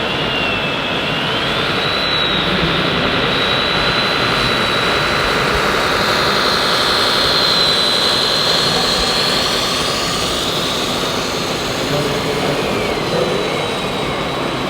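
High electric whine of radio-controlled model construction machines' motors and hydraulic pumps, rising about a second and a half in and then holding steady, over the dense noise of a busy exhibition hall with voices.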